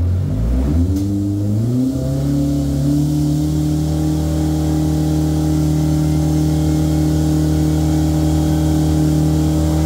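Turbocharged Polaris RZR Pro R four-cylinder engine running hard on a chassis dyno. Its note drops sharply just after the start, climbs back over about two seconds, then holds at a steady high speed under load.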